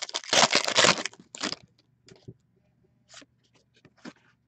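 A trading-card pack wrapper being crinkled and torn open, a loud crackle for about a second with a shorter rip just after, followed by a few light clicks and taps of cards being handled.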